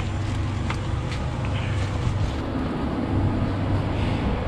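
Steady low rumble of vehicle noise, with a couple of faint clicks about a second in.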